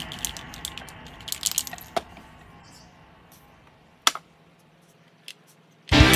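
Music fading out, then a few light clicks and taps of lids and cans being handled on a table, with a small cluster early on and single taps later. Music starts again near the end.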